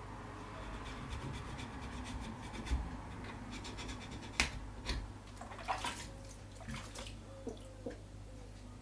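Water running from a shower as a wooden rifle stock is rinsed of paint stripper, with a few sharp knocks and clicks in the middle of the clip.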